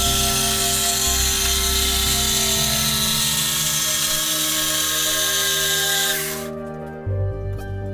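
Electric jigsaw running as it cuts through a wooden board, stopping about six seconds in. Background music plays throughout.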